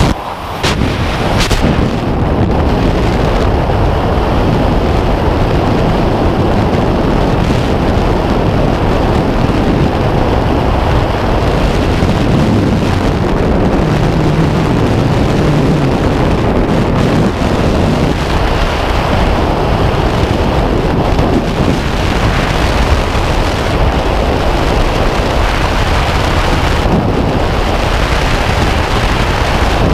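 Freefall wind rushing over a skydiver's camera microphone. It builds within the first couple of seconds after leaving the plane and then holds as a loud, steady rush.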